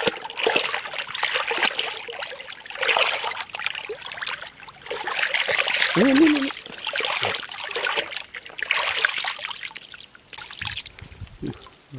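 Muddy water splashing and sloshing in irregular bursts as hands and legs churn through a shallow mud pit, groping for and grabbing a fish. A brief voice sound comes about six seconds in.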